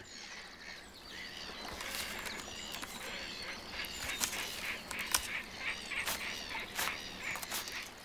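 Black-headed gulls calling at a nesting colony: many short calls, overlapping and in quick succession, growing busier after the first couple of seconds.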